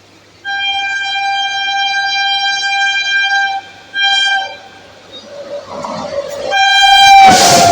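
Passing express train's horn: a long blast of about three seconds, a short blast, then a third blast as the train arrives. The pitch of the third blast drops as the train passes, and the loud rush of the train running through follows.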